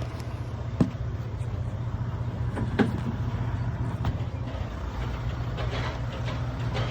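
A steady low mechanical drone, like a running engine or machine, with a few sharp metallic clicks over it: about a second in, near three seconds, and about four seconds in.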